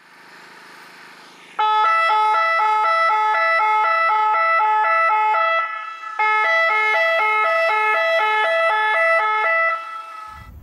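Automatic track warning system (Rottenwarnanlage) horns sounding a loud two-tone warning that switches rapidly back and forth, about two to three changes a second, in two long stretches with a short break in the middle. The signal warns track workers of an approaching train.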